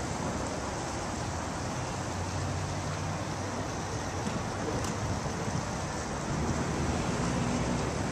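Steady outdoor noise of wind on the microphone, with a low rumble of traffic beneath it.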